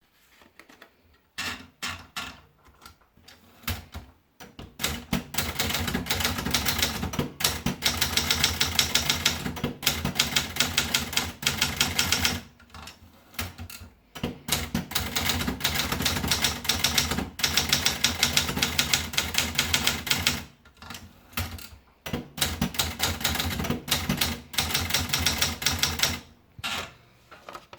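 Scheidegger International typewriter being typed on: a few single key strikes, then long fast runs of keystrokes with short pauses between them.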